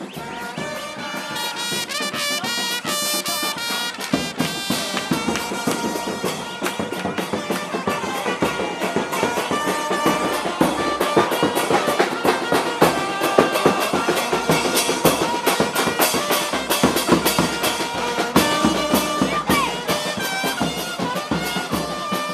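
Brass band music with drums: horns playing sustained melody lines over a fast, steady drum beat that grows louder about four seconds in.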